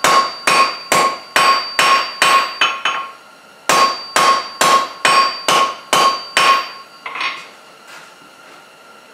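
Hand hammer striking hot 3/8-inch square mild steel on an anvil, drawing out a leaf's stem: a steady run of blows about two and a half a second, each with a bright ring from the anvil. The hammering breaks briefly about three seconds in, resumes for about seven more blows, and stops about two-thirds of the way through, followed by one lighter knock.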